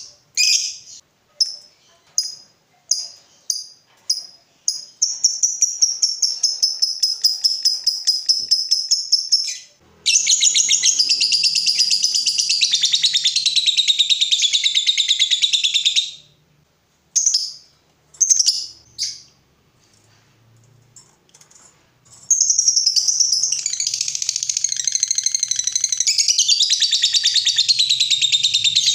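A lovebird's high, sharp chatter. A few separate chirps lead into long, rapid trills of several seconds each (the 'ngekek panjang' long chatter that lovebird fanciers prize). There is a short break of near quiet past the middle before the trilling starts again.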